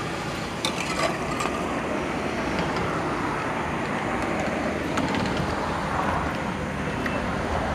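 Steady rumble of road traffic passing on a highway, with a few faint clicks.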